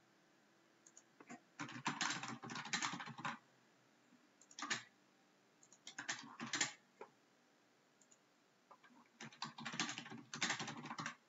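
Computer keyboard typing in several short bursts of rapid keystrokes, with pauses in between.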